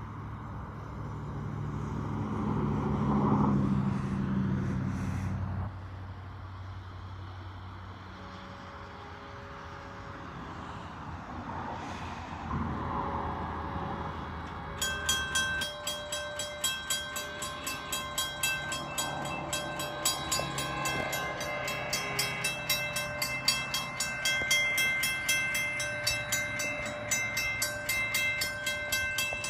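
A distant train horn sounds during the first few seconds and stops. About 15 s in, a railroad crossing warning bell starts ringing in a quick, steady rhythm of strokes as the signals activate, a bell the railfan calls dead.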